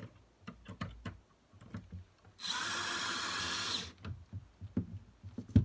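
Cordless drill-driver running in one steady burst of about a second and a half, with light clicks and knocks of handling before and after it and a sharper knock near the end.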